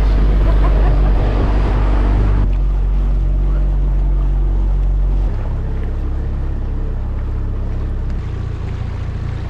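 An inflatable dinghy's outboard motor running at speed, a steady low hum with the rush of water and wind over it. The rushing hiss falls away abruptly about two and a half seconds in, and the hum changes and softens about five seconds in.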